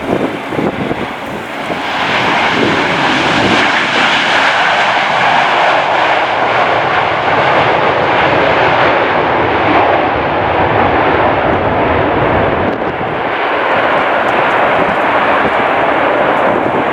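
Passenger jet's engines running loud and steady, swelling about two seconds in, with gusts of wind buffeting the microphone at the start.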